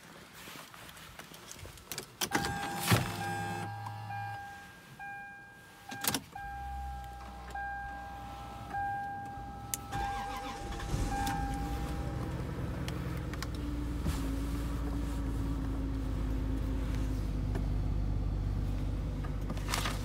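Lexus GS300 cold start: a warning chime beeps repeatedly with a few clicks of the key in the ignition, then about ten seconds in the 3.0-litre 2JZ-GE inline-six starts and settles into a steady cold idle.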